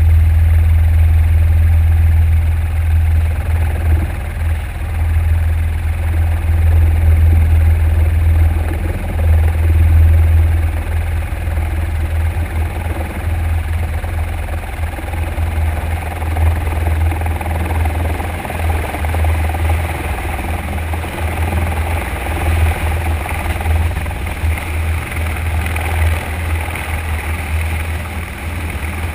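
Eurocopter EC120B helicopter heard from a camera mounted on the aircraft: a steady, loud low rotor drone with turbine noise as it descends over a ship's deck and settles into a hover. The drone eases a little about halfway through, while a higher hiss grows.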